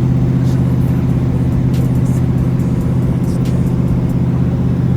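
Car engine running steadily at an even speed, with a few faint ticks over it.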